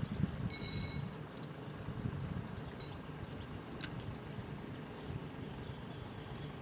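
An insect trilling steadily at a high pitch, over a low, uneven rumble. A short ringing tone sounds about half a second in.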